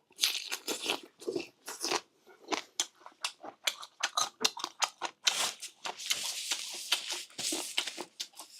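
Close-up crunching and chewing of boneless chicken feet, many short crisp bites in quick succession, with a longer stretch of dense crunching a little past the middle.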